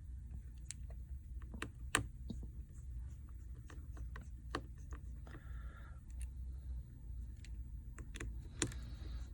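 Irregular light clicks and taps of small repair tools working on a phone's screws and frame during disassembly, with the sharpest click about two seconds in and another near the end.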